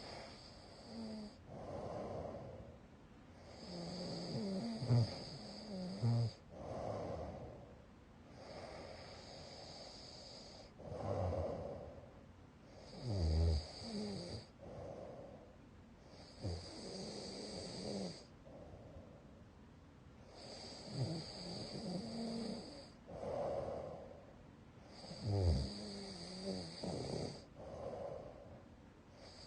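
A sleeping person snoring loudly: a rasping snore on breath after breath, coming irregularly every two to three seconds.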